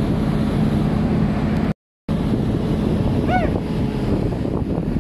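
Wind buffeting the microphone over the steady running of a crane's diesel engine. The sound cuts out briefly just before two seconds in, and a short rising-and-falling high call is heard a little past three seconds.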